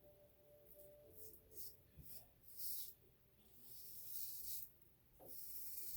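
Feather SS kamisori straight razor scraping through lathered stubble in a series of faint strokes, the first few short and the later ones about a second long.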